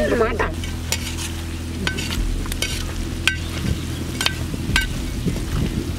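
Mutton curry sizzling in thick gravy as it is stirred with a metal spoon in the pan, the spoon clicking and scraping against the pan every half second to a second, some strokes with a short metallic ring.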